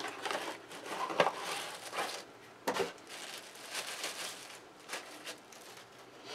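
Rustling and scraping of a small cardboard box being opened by hand and its contents pulled out, with a few sharp light knocks.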